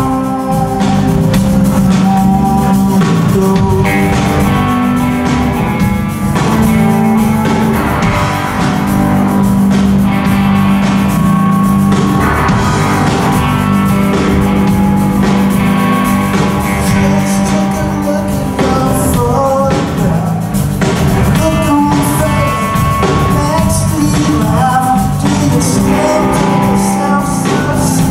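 Live rock band playing a song: two electric guitars, electric bass and drum kit with keyboard, and a sung lead vocal over it.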